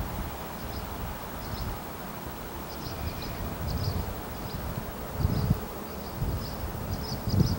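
Low rumble of a tank-car freight train rolling away, swelling twice with gusts on the microphone, with short high chirps coming more and more often from about three seconds in.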